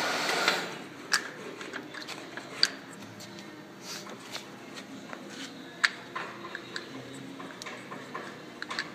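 Deckel FP4M universal milling machine's steady running noise stops about half a second in, leaving a faint hum. Scattered sharp clicks and light knocks follow as the speed-selector dial and controls are handled.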